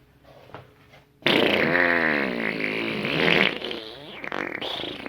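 A long fart sound with a wobbling, bending pitch. It starts suddenly a little over a second in and goes on more quietly after about three and a half seconds.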